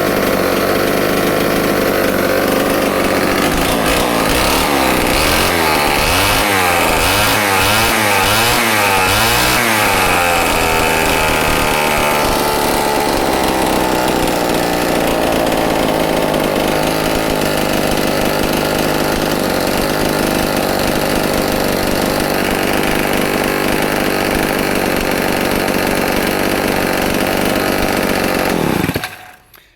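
Homelite XL-12 single-cylinder two-stroke chainsaw running. It is revved up and down again and again for the first ten seconds or so, then runs steadily until it is shut off just before the end.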